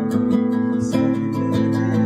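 Acoustic guitar strummed in a steady rhythm, its chords ringing on.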